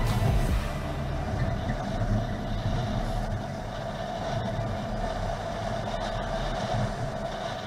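Four-wheel-drive vehicle driving on a sandy desert track, a steady engine and tyre rumble heard from inside the cabin.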